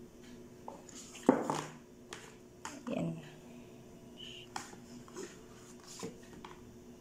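Quiet handling of a smartphone and its packaging: scattered small clicks and taps, with a short loud sound about a second in and a smaller one around three seconds.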